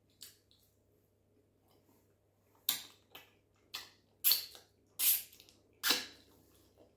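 Close-miked wet mouth sounds of eating by hand: a soft click, then about six sharp smacks of lips and sucked fingers, spaced half a second to a second apart, starting a little before halfway.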